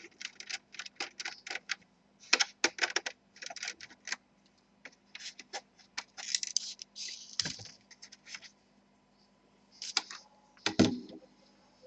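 A screwdriver backing small screws out of an Asus X54H laptop's plastic bottom case: irregular light clicks and ticks of the bit and screws on the plastic, with a few brief scrapes and a louder knock near the end.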